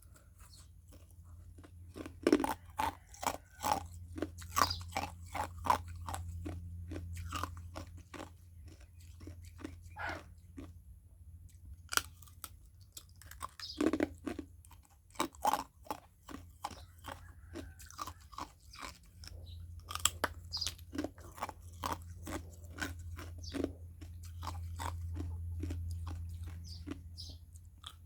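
Ice being bitten and chewed: a fast, irregular run of sharp crunches and cracks, with a few short pauses between bites.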